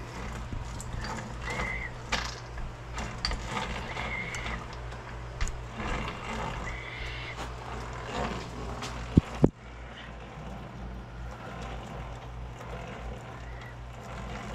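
A geared shop machine running with a steady low motor hum, scattered light clicks and a few short squeaks from its drive. There are two sharp knocks about nine seconds in.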